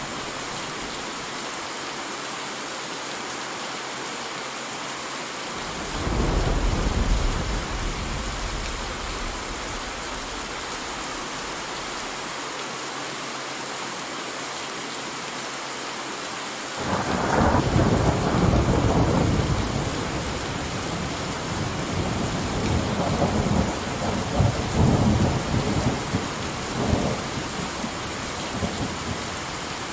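Steady heavy rain with thunder: a short rumble of thunder about six seconds in, then a longer, louder rumble from about seventeen seconds in with several sharp cracks near the end.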